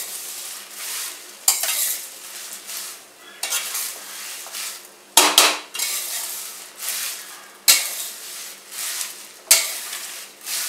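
Metal spatula stirring and scraping whole roasted spices around a stainless steel pan: a dry, scratchy rustle of seeds and leaves in repeated strokes, with several sharp clinks of metal on metal.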